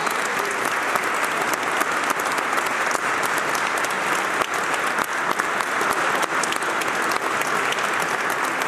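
Audience applauding steadily with dense clapping.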